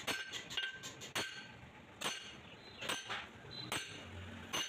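Hammer blows on a flat steel drift, driving a new bush into a bore of a Mahindra 575 DI tractor's front axle beam: sharp metallic clinks that ring briefly, a little under a second apart.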